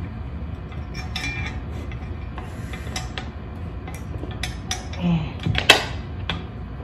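Small hard clicks and clinks of furniture hardware being handled and trial-fitted into the base of an upturned chair under assembly: a handful of separate taps, the sharpest one about two-thirds of the way through.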